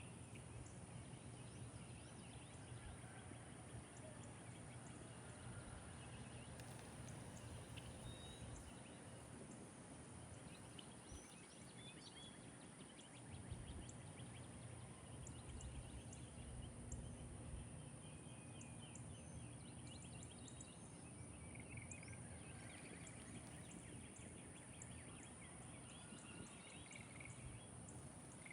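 Faint backyard birdsong: scattered short chirps and calls from several birds, over a steady low rumble and a constant high-pitched tone.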